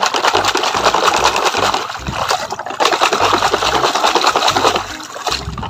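Water splashing and sloshing as a plastic toy cement mixer truck is swished rapidly back and forth by hand through muddy water, with a brief lull about halfway through.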